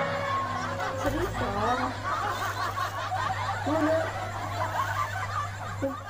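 Snickering and chuckling laughter, several voices overlapping, over a steady low hum.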